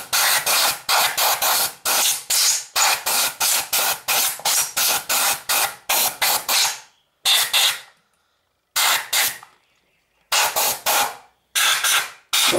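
Compressed-air washing gun spraying gasoline to blow dust out of an air filter housing. It hisses in quick pulses, about three a second, for the first seven seconds, then in a few longer blasts with short pauses between.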